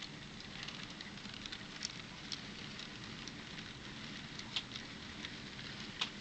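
N scale model passenger cars rolling round a curve of track: a steady light rattle of the small wheels, with scattered sharp ticks, the loudest about 2, 4.5 and 6 seconds in.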